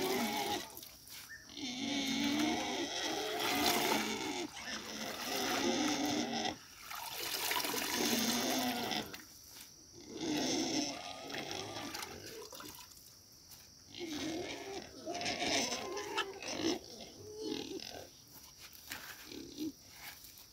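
Pigs calling over and over, in bursts a second or two long with short pauses between them.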